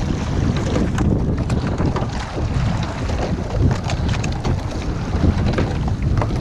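Wind buffeting the microphone over the water noise of a rowing shell under way, with scattered small knocks throughout.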